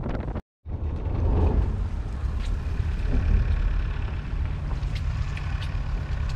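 Wind and water noise cut off by a moment of silence about half a second in, then a road vehicle driving: a steady low rumble of engine and road noise.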